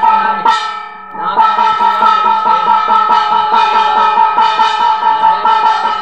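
Brass puja hand bell rung rapidly and steadily, a metallic ringing held on a couple of steady pitches. The ringing breaks off briefly about half a second in and starts again just after a second.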